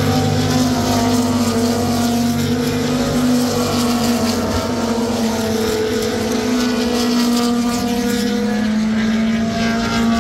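Historic sports-prototype race cars passing at speed one after another, their racing engines at high revs, with the engine note bending and sliding in pitch as each car goes by.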